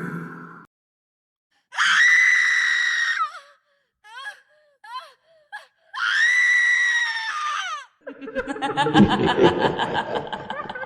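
Horror sound effect: two long, high-pitched screams, with a few short falling gasps or whimpers between them, then a rough, rapidly pulsing cry, laughter-like.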